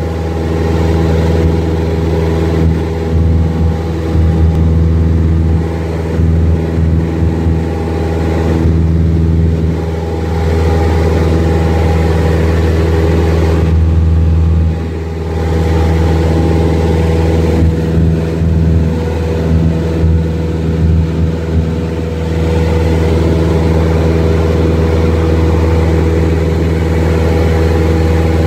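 Small private plane's engine and propeller droning steadily, heard from inside the cabin. It is a loud, even hum of several steady tones, its level wavering unevenly for stretches a few seconds in and again past the middle.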